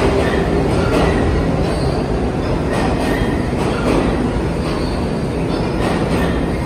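Subway train running on the rails: a steady loud rumble with a faint high wheel squeal and scattered clacks of wheels over rail joints.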